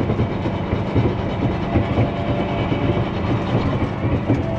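Feed truck heard from inside its cab while driving: the engine runs under a steady low rumble, with a constant clatter of rattles from the truck and its mixer box.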